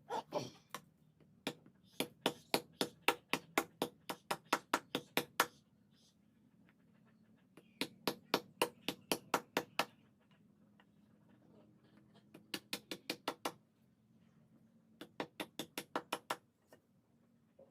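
Light hammer blows on metal in quick, even runs of about four strikes a second, in several bursts with short pauses between them.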